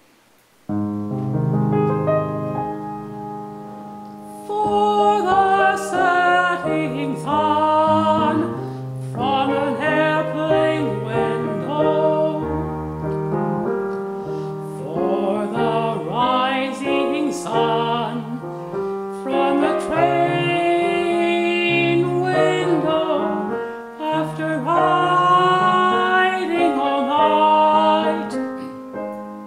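Grand piano begins a slow introduction just under a second in, and a male tenor voice enters about four and a half seconds in, singing a song with the piano accompanying and pausing briefly between phrases.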